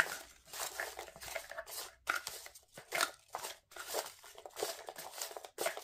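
Folded paper slips being stirred by hand in a cardboard box: irregular rustling and scraping of paper against paper and card.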